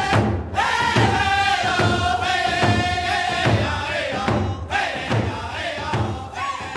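Outro music: a steady drum beat under a sustained, chant-like melody, slowly fading out.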